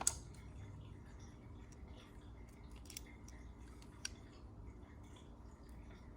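Small sharp metal clicks of pliers crimping an alligator clip onto a wire. The loudest click comes just after the start, with a few fainter ones around three and four seconds in.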